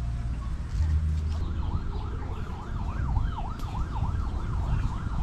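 A siren or alarm wailing in a fast rise-and-fall, about three sweeps a second, starting about a second and a half in, over a low rumble.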